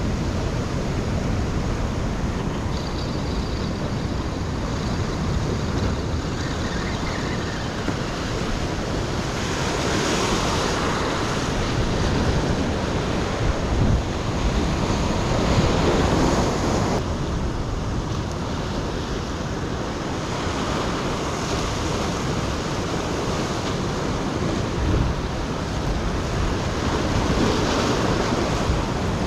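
Ocean surf breaking and washing against a rocky shore, with wind buffeting the microphone. The surf swells louder about ten seconds in and again around fifteen seconds.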